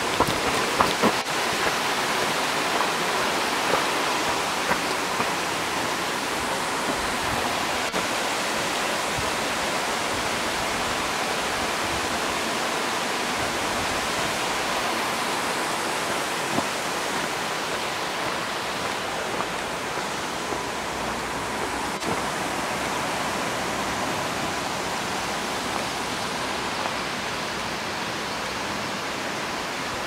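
Waterfall rushing steadily, slowly getting quieter, with a few sharp ticks in the first couple of seconds.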